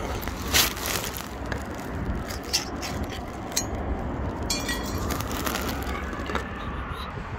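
Metal tin of wet cat food being handled and pulled open: a sharp click, scattered clicks and a brief metallic scrape with ringing, over a steady low rumble.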